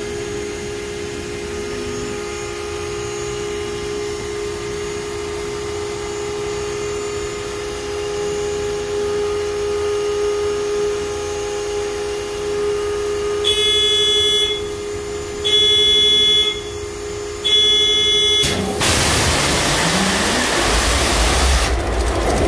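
A steady hum, then three one-second warning beeps, then the compressed-air starter of a V16 locomotive diesel engine blasts in with a loud hiss. The engine cranks over, rising in speed, and begins to fire near the end.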